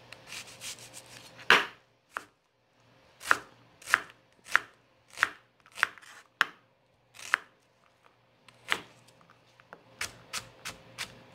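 Large kitchen knife dicing an onion on a plastic chopping board: separate sharp knocks of the blade hitting the board about one or two a second, then a quicker run of lighter taps near the end.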